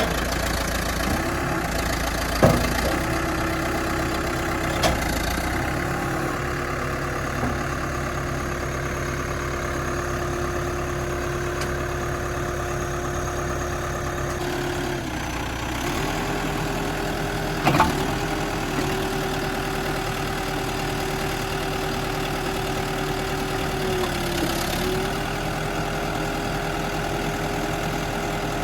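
New Holland B95 loader backhoe's diesel engine running steadily at idle, its note stepping up slightly about halfway through. A few sharp knocks sound over it, near the start and again just past the middle.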